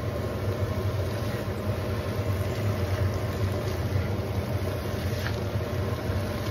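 Green beans sizzling in a frying pan on high heat while being stirred, over a steady low kitchen hum.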